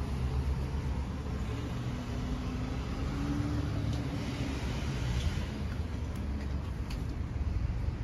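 Steady low rumble of a motor vehicle, with a faint engine hum that rises a little and then fades in the middle.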